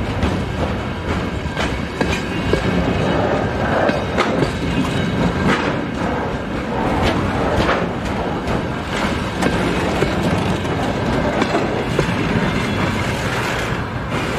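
Container train of loaded flatcars rolling past close by, a steady rumble with frequent irregular clatter of wheels over the rail joints.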